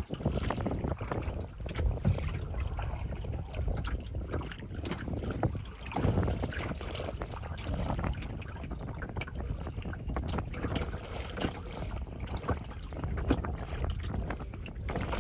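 Wind buffeting the microphone and water rushing past a moving boat: a steady, uneven rumbling noise.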